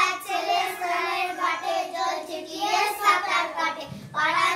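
A group of young children reciting a Bengali poem together in a sing-song chant, with a brief pause a little before the end.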